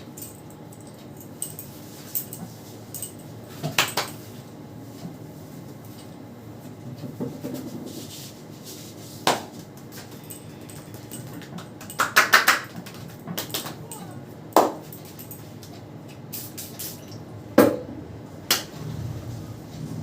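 Hands slapping and tapping during a head and neck massage: sharp, short slaps at irregular intervals, with a quick run of several about twelve seconds in, over a low steady hum.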